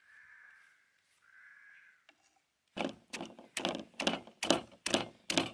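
Stone pestle pounding shredded ingredients in a stone mortar: sharp knocks in a quick, even rhythm of about three a second, starting about three seconds in. Before that come two faint, soft sounds.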